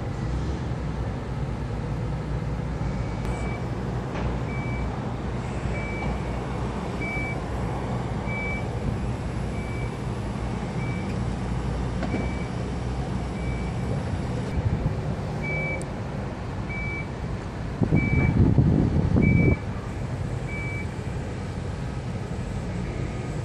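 A construction vehicle's reversing alarm beeping about once every second and a quarter over a steady low rumble of engines and traffic. Near the end a loud rushing burst lasts about a second and a half.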